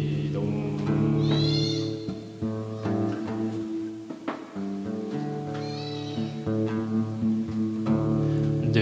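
Acoustic-electric guitar playing slow, ringing chords that change every second or so, recorded through a BM800 condenser mic and V8 sound card. Two short, high, wavering cries sound over it, about a second and a half in and again around six seconds in.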